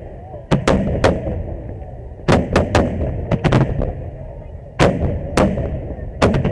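Aerial firework shells bursting in quick succession: over a dozen sharp bangs, often two or three close together, each followed by a short echoing rumble.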